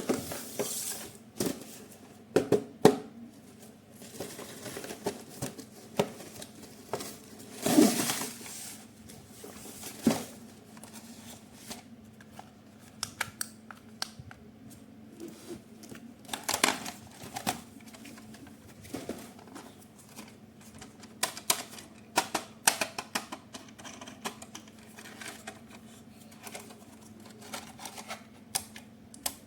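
Irregular clicking, tapping and occasional rustling of plastic parts and packaging being handled up close, with a few louder rustles.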